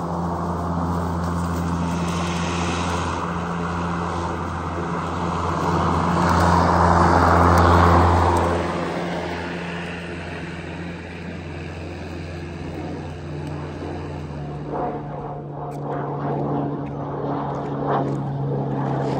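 SKIL PWRCORE 40 cordless battery lawn mower running steadily as it cuts tall grass, growing louder as it passes close, loudest about seven seconds in, then fading. A few short knocks follow near the end.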